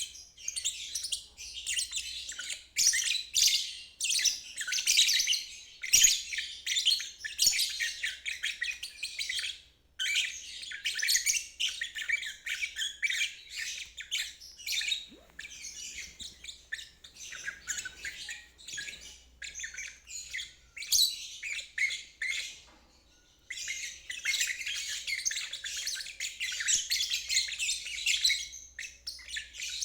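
Lovebird singing its ngeriwik song: a rapid, continuous high-pitched chattering twitter. It breaks off briefly about ten seconds in, and for a bit longer about two-thirds of the way through.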